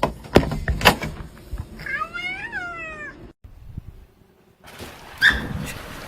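Two sharp knocks, then a cat gives one long meow that rises and then falls in pitch.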